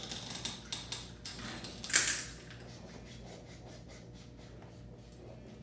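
Metal prosthetic pylon and foot being handled during fitting: a run of small clicks and scrapes, with one sharp loud clack about two seconds in.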